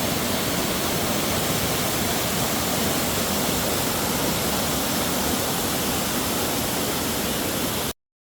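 Waterfall rushing close by: a loud, steady, even roar of falling water that cuts off abruptly near the end.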